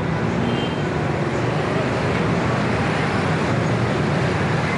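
Steady city street traffic noise, a continuous rumble of vehicles, mixed with indistinct voices of a crowd of pedestrians.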